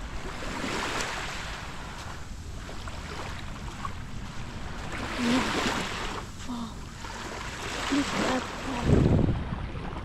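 Small waves washing up on a sandy beach, swelling about three times, with wind rumbling on the microphone.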